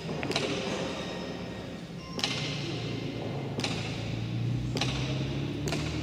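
Sharp knocks of a hard pelota ball on the court, four of them a second or two apart, each ringing in the large hall. A steady low hum joins about two seconds in.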